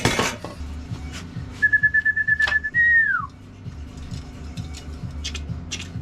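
A whistle: a warbling steady note held for about a second, then a short note gliding downward, over a steady low hum.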